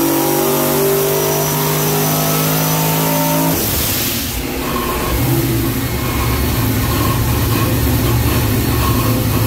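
Engine sound effect over the closing logo: an engine held at steady revs, then a whoosh about four seconds in as it drops to a lower, uneven rumble that runs on.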